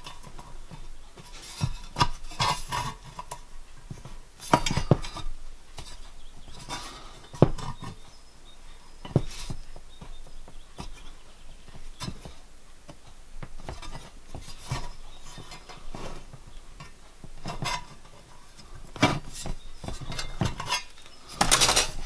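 Irregular metallic clicks, taps and short scrapes as a small steel hand tool is worked against the edge of a copper boiler shell and the copper sheet is handled.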